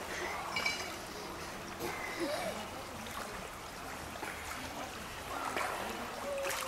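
Steady outdoor background of running, trickling water, with faint distant voices.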